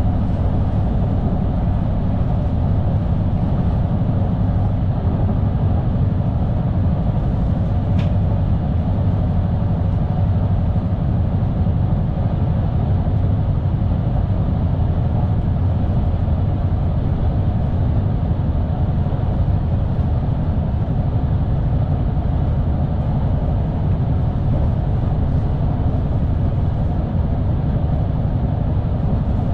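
Steady running noise of an SNG electric train heard from the driver's cab: a rumble of wheels on rails, unchanging in level. One short, sharp click about eight seconds in.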